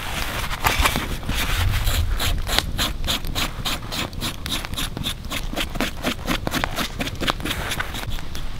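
Knife blade scraping the singed hide of a groundhog carcass in quick repeated strokes, several a second, taking off the burnt hair and char so that the skin can be kept and eaten.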